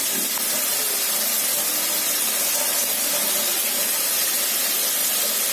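Chicken pieces in a thick spiced masala sizzling steadily in a pan over the flame as they are fried down for a curry.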